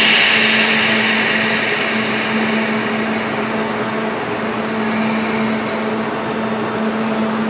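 Sudden burst of compressed-air hiss from a standing Kintetsu 21000-series Urban Liner Plus electric train, fading over about three seconds, over the train's steady low hum.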